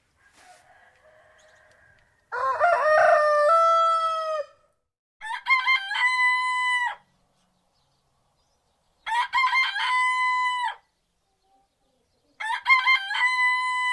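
Roosters crowing: four full crows a few seconds apart, the first lower-pitched and the next three higher and alike, with a faint, distant-sounding call before them.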